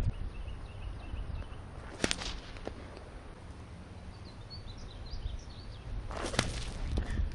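A stone sling cracking sharply twice, about two seconds in and again about six seconds in. The crack is the sling's free end whipping past the speed of sound, a small sonic boom. Low wind rumble on the microphone and faint bird chirps run underneath.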